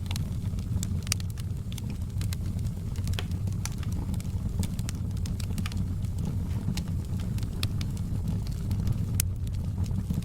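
Wood fire in a fireplace crackling, with frequent small sharp pops at irregular intervals over a steady low rumble of the flames.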